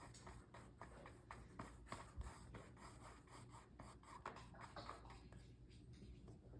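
Faint, quick scratchy strokes of a paintbrush on canvas, many short irregular strokes over a low room hum.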